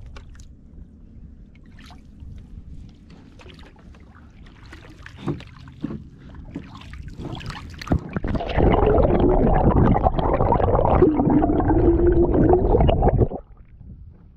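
Light paddle splashes and drips from a canoe, then about eight seconds in the microphone goes under the river's surface: a loud, muffled underwater rush and bubbling that cuts off suddenly about five seconds later as it comes back out.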